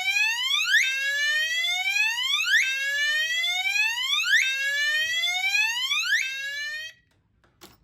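Gentex Commander 3 fire alarm horn sounding its whoop tone: a loud electronic rising sweep repeated about every two seconds, cutting off suddenly about seven seconds in.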